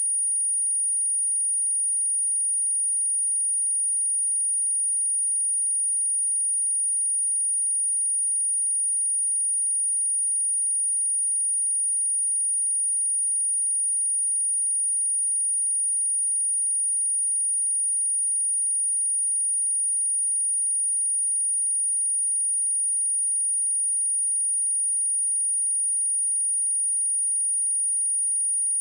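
A single pure 9577 Hz sine tone, high-pitched and perfectly steady, played as a speaker test and cleaning tone meant to vibrate water and dust out of a speaker.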